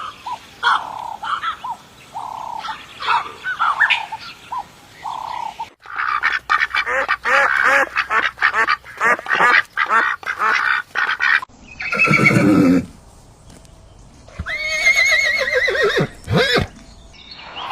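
Ducks quacking among other farm-bird calls: short separate calls at first, a dense run of rapid quacking from about six seconds in, then a few louder, separate calls near the end.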